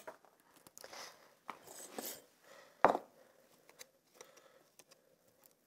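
A metal fork tapping and scraping in a small wooden bowl as avocado is mashed, in short irregular bursts, with one sharper knock about three seconds in.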